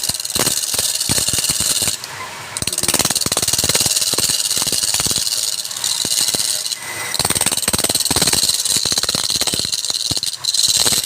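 Wood lathe with a turning tool cutting into the spinning workpiece: a steady scraping hiss with rapid clicks, easing off briefly about two seconds in and again near seven seconds.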